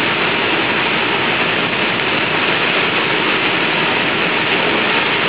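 Steady hiss of tyres on a wet road, with wind, heard inside the cabin of a moving Tesla Roadster.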